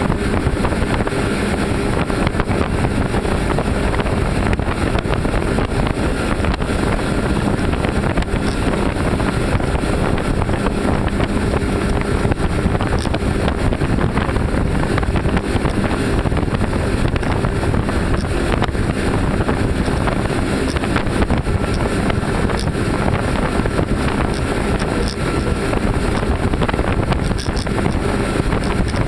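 Three outboard motors running at steady high speed, a constant engine hum under the rush of the wake and hull on the water. Wind buffets the microphone.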